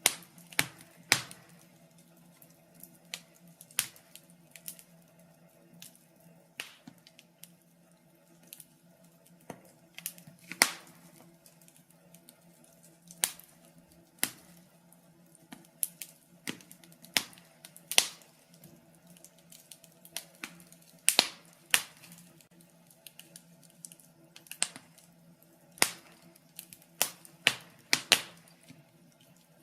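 Fire in a fireplace crackling: irregular sharp pops and snaps, a few much louder than the rest, over a faint steady low hum.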